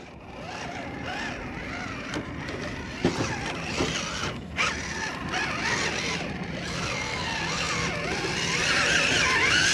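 Vanquish VS4-10 Phoenix 1/10-scale RC rock crawler climbing over rock. Its electric motor and geared drivetrain whine, wavering in pitch with the throttle and rising near the end, with a few sharp clicks from tyres and chassis on the rock.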